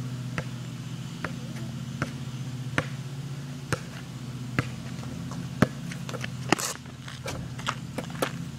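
Basketball bounced on an asphalt road, single sharp bounces a little under a second apart, then several quicker bounces near the end, over a steady low hum.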